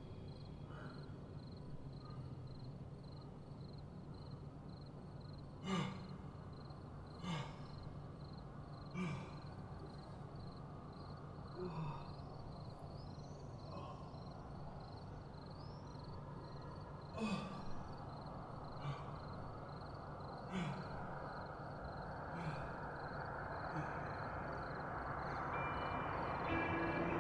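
A person sighing and quietly sobbing: about ten short, breathy catches with a falling pitch, spaced irregularly, over a faint steady hum. A hiss builds up near the end.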